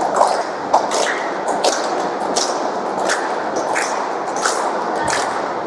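A group clapping hands together in a steady beat, flamenco palmas, about three claps every two seconds, over a continuous background wash.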